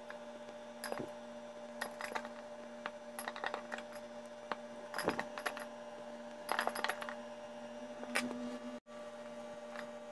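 A metal fork clinking and scraping against small drinking glasses while it mashes and stirs leaves, in short irregular clinks with a bright ring. A steady low hum runs underneath.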